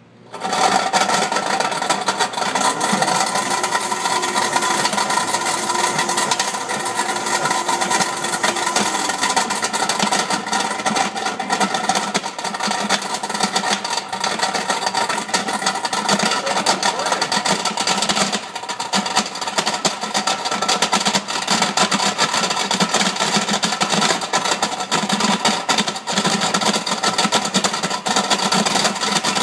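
High-powered blender in a sound-enclosure cover switching on about half a second in and running at speed with 3/4-inch steel ball bearings in its jar. The steel balls make a dense, continuous clatter and grinding against the blade and jar over the motor.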